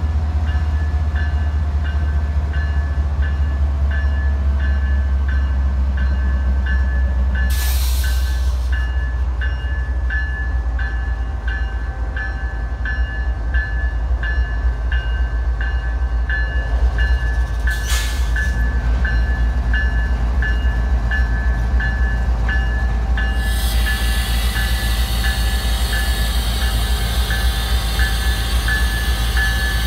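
Norfolk Southern diesel freight locomotives passing close, their engines making a steady low rumble while a bell rings at an even pace. Two short hisses come about a third and two thirds of the way through, and wheel and rail noise grows near the end as the lead units come alongside.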